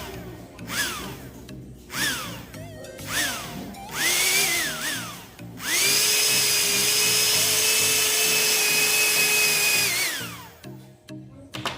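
Small electric motor driving the fan of a homemade DC-motor 'jet engine', revved in short blips that rise and fall in pitch, then held at a steady high whine for about four seconds before winding down. Background music plays underneath.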